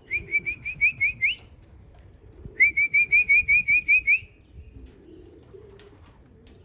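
A person whistling two quick runs of short rising notes, each run about a second and a half long, to call homing pigeons in to the loft.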